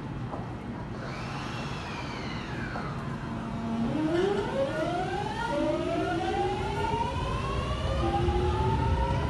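JR 209 series electric train pulling away from the platform, its inverter and traction motors whining. Falling tones sound about one to three seconds in. A steady tone follows, then from about four seconds several tones rise in pitch together as the train speeds up, jumping to new pitches a couple of times over a growing rumble of the wheels.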